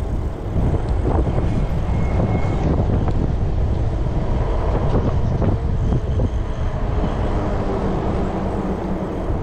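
Wind rushing over the microphone of a rider on a fast-moving e-bike: a loud, steady low rumble that flickers in strength, with no clear motor tone.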